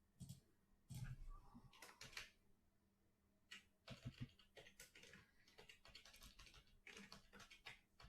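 Faint computer keyboard typing and mouse clicks: a few scattered taps, then a busier run of quick clicks from about four seconds in.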